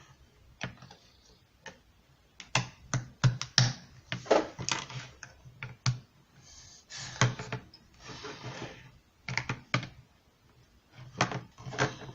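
Hard plastic toy parts of a Play-Doh playset clicking and clacking as they are handled and fitted together during assembly, in irregular sharp knocks with a few brief scraping slides.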